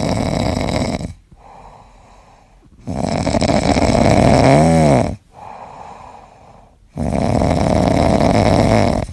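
Ginger tabby cat snoring loudly in its sleep: three long snores with quieter breaths between them. The middle snore ends in a brief whistling tone that rises and falls.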